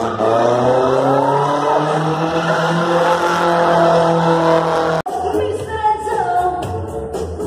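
A car drifting, its engine held at high revs with tyres squealing. The sound cuts off suddenly about five seconds in and gives way to rock music with guitar.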